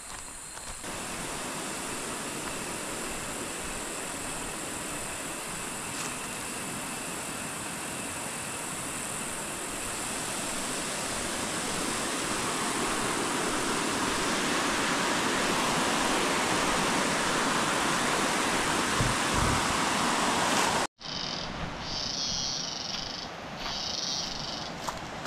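Rushing water of river rapids, growing steadily louder as it is approached, under a steady high insect drone. After an abrupt cut about 21 seconds in, the water is quieter and insects call in short pulsing bursts.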